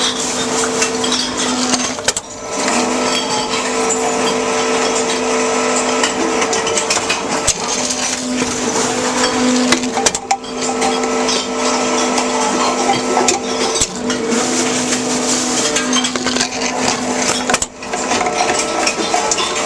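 Tomra TX2 reverse vending machine running: a steady motor hum as bottles are spun and carried in, breaking off briefly and restarting every few seconds, with a constant rattling clatter over it.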